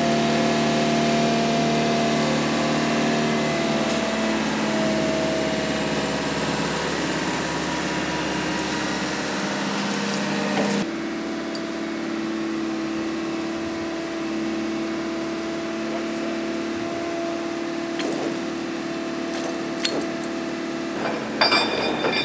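A crane's diesel engine running steadily; about halfway through, its note changes and it becomes a little quieter. A few sharp metallic clinks come near the end.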